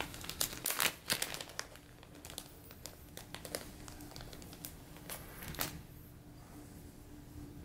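Plastic dubbing package (Hareline Ice Dub) crinkling as it is handled and opened to pull out a pinch of dubbing: a dense run of crackles in the first couple of seconds, then scattered lighter ones.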